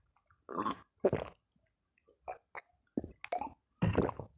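Close-miked mouth sounds of drinking and eating: gulps from a bottle and short breathy exhales, heard as a string of brief separate bursts.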